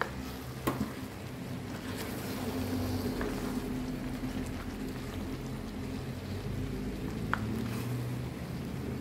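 Thick tomato-based beef stew simmering in a pan as it is stirred, a steady low bubbling rumble, with a spatula clicking against the pan a few times: twice near the start and once near the end.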